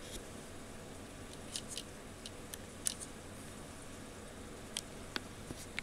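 Quiet room tone: a steady low hiss with a handful of faint, sharp ticks scattered through it.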